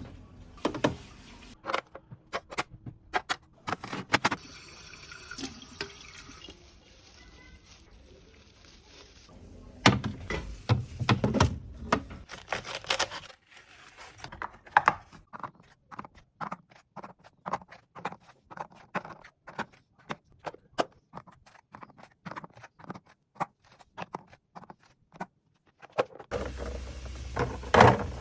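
Kitchen containers and items being handled and set down while a fridge is organised: many short clicks, taps and knocks of plastic and glass. About four seconds in there is a steady hiss of running or pouring water lasting about five seconds.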